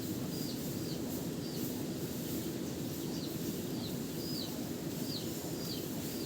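A small bird chirping again and again, short high notes that each drop in pitch, about one or two a second, over a steady low rumble of outdoor background noise.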